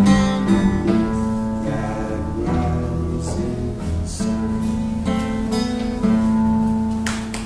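Acoustic guitar playing the closing bars of a folk-song accompaniment, with a man's voice singing long held notes; the sound dies down just before the end.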